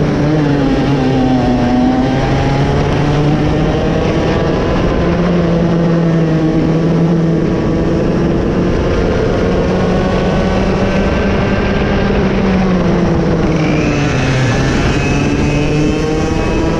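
Raket 120 two-stroke kart engine running hard, its pitch falling and rising repeatedly as it slows and accelerates again. A second, higher engine note comes in near the end.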